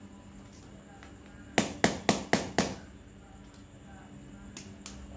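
Metal tool knocking against a broken bicycle rear derailleur: five quick, sharp metallic knocks at about four a second, each ringing briefly, then two lighter clicks near the end.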